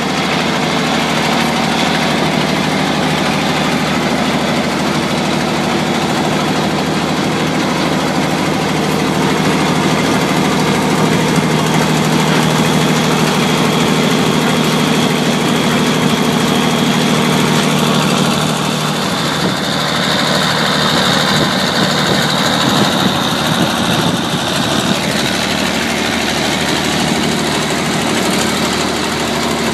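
Maxigrind 425 horizontal grinder running steadily under its 425 hp CAT 3406 diesel engine, with a faint high whine above the engine note. The sound dips slightly and shifts about two-thirds of the way through.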